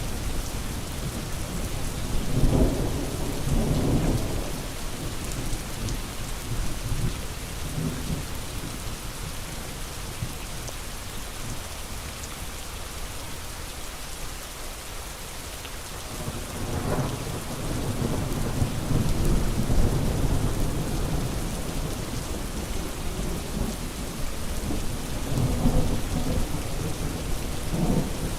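Steady heavy rain with rolling thunder: low rumbles swell and fade a few seconds in, again past the middle, and near the end, with a quieter lull between.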